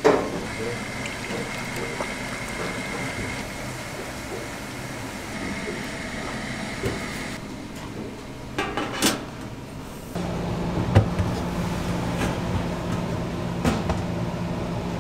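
Restaurant kitchen work noise: a sharp knock, a steady high whine that cuts off about halfway, a brief clatter of utensils, then a steady low machine hum with occasional knocks from about ten seconds in.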